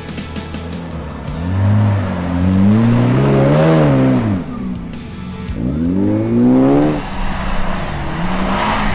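A 4x4's engine revving hard while climbing a soft sand dune, its pitch rising and falling twice. Background music plays underneath.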